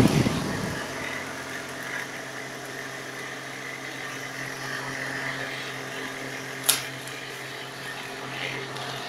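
Homemade PVC fan's 12 V motor running with a steady hum made of several even tones, with one sharp click about two-thirds of the way through.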